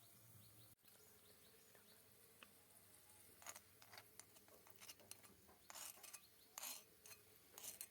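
Faint, scattered light clicks and taps of miniature kitchen utensils being handled, a handful of short strikes, most of them in the second half.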